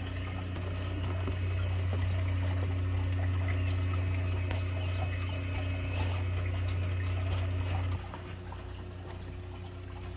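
Steady low machine hum with faint scattered peeps of newly hatched quail chicks over it; the hum drops away about eight seconds in.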